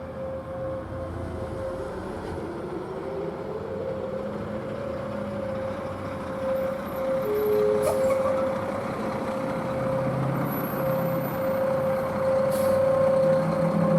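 Whelen Vortex outdoor warning sirens sounding a steady, unwavering alert tone for a monthly siren test, with faint rising glides in the first couple of seconds. Road traffic goes by underneath, a vehicle's rumble growing louder from about two-thirds of the way in.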